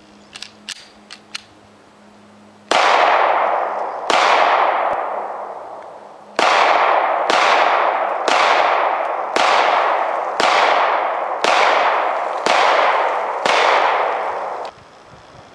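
Springfield XD 9mm pistol fired ten times: two shots, a pause, then eight shots at about one a second, each ringing off and fading before the next. A few faint clicks come before the first shot.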